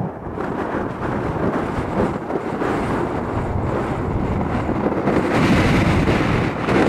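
Jet engine roar from an arriving Boeing 747-400 airliner: a loud, steady, rumbling noise with wind buffeting the microphone. It grows brighter and hissier about five seconds in.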